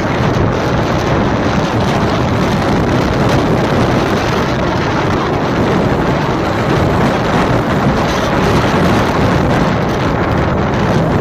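Steady rush of wind on the microphone mixed with the road noise of a moving car.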